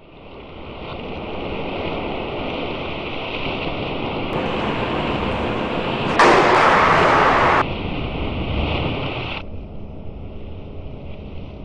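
Edited soundtrack of steady rushing noise fading in from silence, with a louder burst of the noise about six seconds in that lasts over a second and cuts in and out abruptly.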